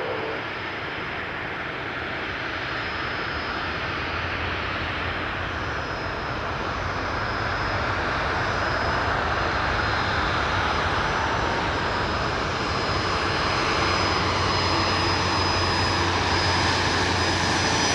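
Jet engine noise of a Boeing 777 climbing out after takeoff, a steady rush with a faint high whine, growing slightly louder over the second half.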